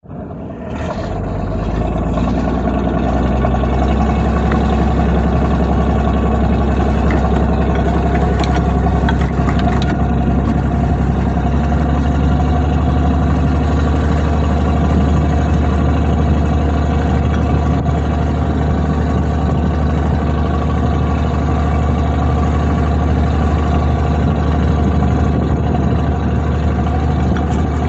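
Fishing trawler's diesel engine running steadily with a low, even hum, with a few light knocks about a third of the way through.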